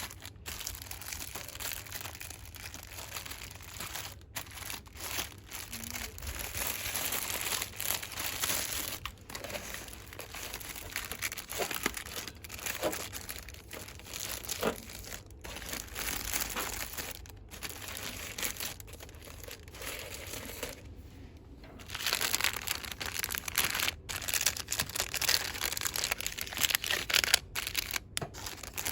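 Plastic cosmetics packaging crinkling and rustling under the fingers, almost without break, with a short lull about three-quarters of the way through.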